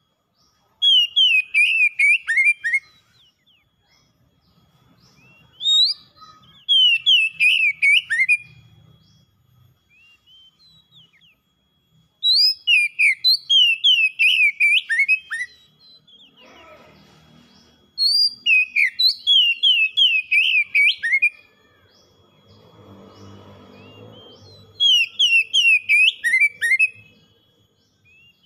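Oriental magpie-robin singing. About five loud phrases of rapid whistled notes, many sliding downward, each phrase two to three seconds long with short pauses between.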